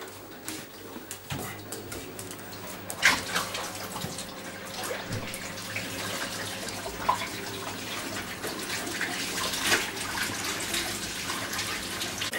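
Water running from a kitchen tap into the sink, steady, with a few sharp clinks and knocks.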